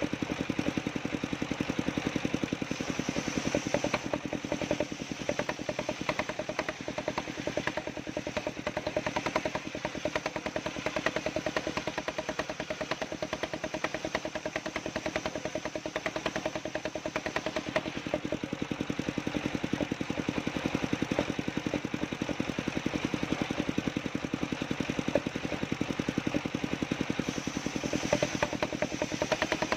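Engine of a homemade wood-cutting machine running steadily with a fast, even chugging pulse.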